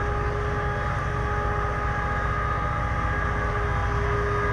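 Tracked Shannon launch and recovery tractor running as it moves the lifeboat carriage over the sand: a low engine rumble with a steady high whine on top.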